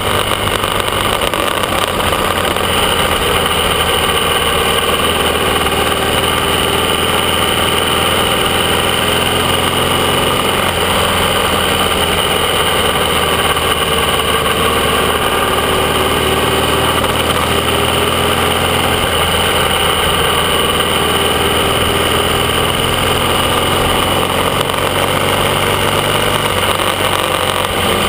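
AJS 650 CSR parallel-twin motorcycle engine running steadily at cruising speed under way, heard from on board with wind noise, its pitch easing up and down only slightly.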